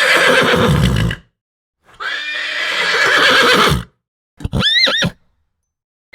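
Horse whinnies, three separate calls with silence between: a harsh one ending about a second in, a second harsh one lasting about two seconds, and near the end a short, clear, high call whose pitch rises and falls.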